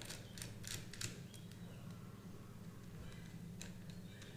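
Faint clicks and small scrapes of a screwdriver turning a motorcycle battery's terminal screw down onto a bare charging wire, several in quick succession and then a couple more later, over a low steady hum.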